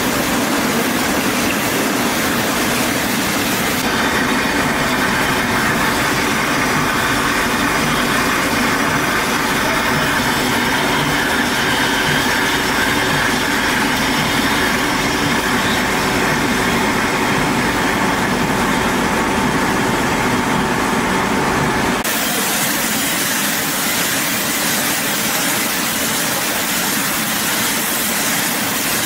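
Steady running noise of a pulp juice bottle filling line, changing abruptly about four seconds in and again about three-quarters of the way through.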